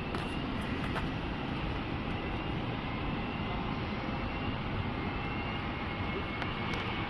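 Airbus A330 jet engines running as the airliner takes off: a steady, even rush of noise with a faint high whine above it.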